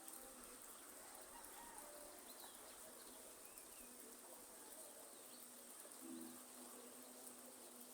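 Faint rainforest ambience: a soft hiss of light rain under a steady high insect drone, with a few brief bird chirps and soft low calls, the clearest about six seconds in.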